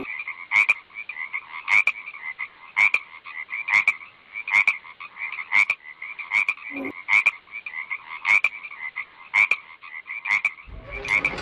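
Frog croaking in a steady rhythm: a constant pulsing chatter with a sharper croak about once a second.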